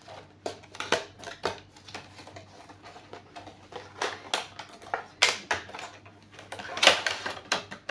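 Cardboard and plastic packaging of a hair dye shampoo handled close to the microphone: irregular clicks and taps, with two louder short crinkles in the second half.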